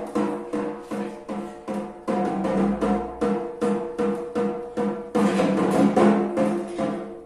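Drum-led music: drums struck in a steady rhythm, about four strokes a second, over held low pitched notes, growing louder about two seconds in and again about five seconds in, then dropping away near the end.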